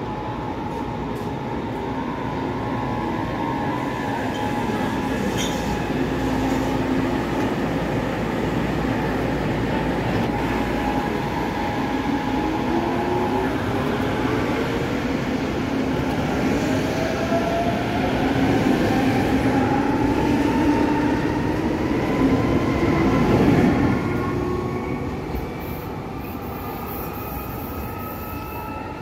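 Electric S-Bahn train running through the station; from about twelve seconds in its traction motors whine, rising in pitch as it accelerates. It is loudest a few seconds before the end, then eases off.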